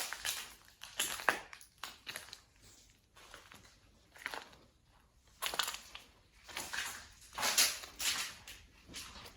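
Footsteps crunching and scuffing over a littered floor, in uneven steps with brief quiet gaps; two of the crunches, in the second half, are louder than the rest.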